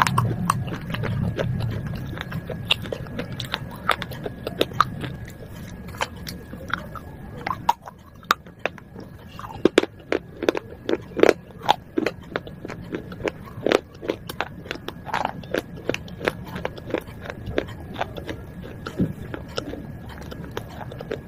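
Broken pieces of baked clay pot being bitten and chewed: an irregular run of sharp cracks and crunches, densest around the middle. A low rumble fades out in the first couple of seconds.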